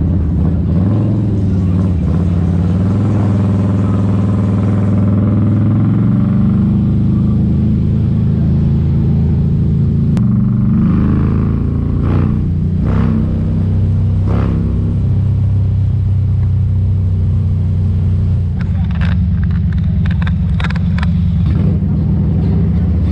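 Motorcycle engine running under way, heard from a camera on the bike. Its pitch rises over the first few seconds as it accelerates, then holds steady, with a few short louder bursts in the middle and near the end.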